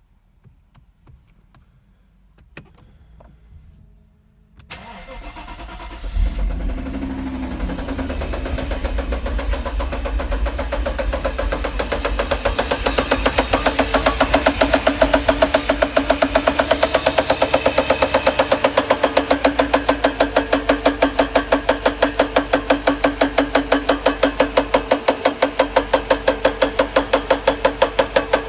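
A Mercedes-Benz 500SL's M119 V8 engine is cranked and starts about five seconds in, then idles with a rapid, even knocking that grows more pronounced. The knock comes from the top left-hand plastic timing chain guide rail in the cylinder head, which has broken off at the bottom.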